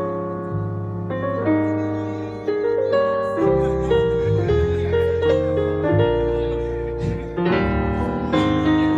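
Band music: a keyboard in a piano sound plays sustained chords that change about once a second over a steady bass line, in an instrumental passage between sung lines of the song.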